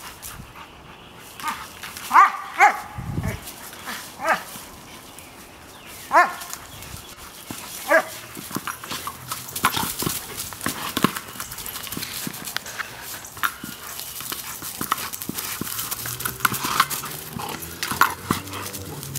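Year-old Rottweiler giving short, sharp barks, about half a dozen in the first eight seconds. After that, many small knocks and scuffs come from the hard plastic Jolly Ball being pushed and mouthed around.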